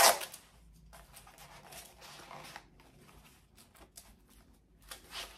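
Canvas holster being handled: a brief loud rasp at the very start, then faint rustling and scraping of the cloth with a few light taps near the end.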